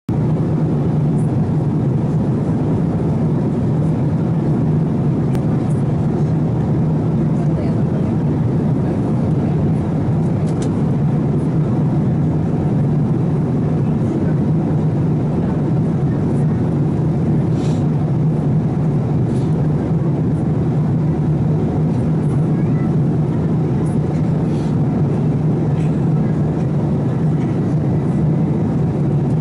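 Steady cabin noise of a Boeing 787-8 airliner in cruise: an unbroken rush of air with a constant low hum.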